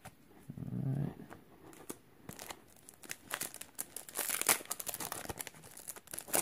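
Foil booster-pack wrapper crinkling in the hands and then tearing open, a dense run of sharp crackles starting a couple of seconds in.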